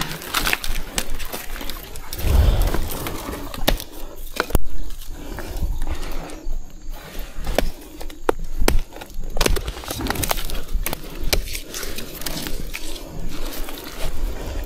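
Rustling with irregular sharp snaps and crackles, as young bamboo shoots are broken off among dry bamboo litter.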